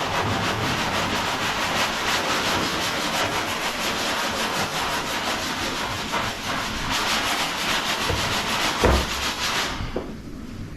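Continuous rapid scraping and rubbing, made of many fine strokes, like sanding. A single knock about nine seconds in, after which the scraping quietens.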